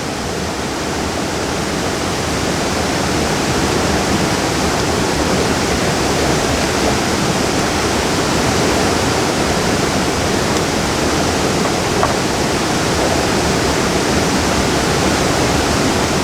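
Waterfall running close by: a steady, loud rush of falling water, with one faint click about twelve seconds in.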